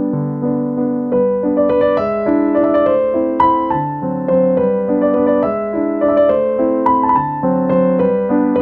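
Background piano music: a melody of single notes over changing chords.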